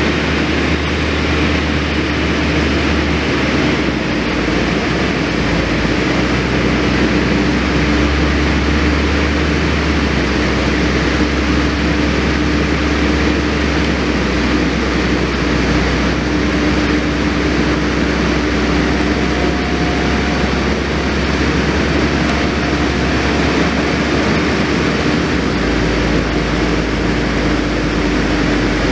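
Engine of a compact tracked loader running steadily under load as it pulls a log cabin on a trailer, with a constant hum over a low rumble.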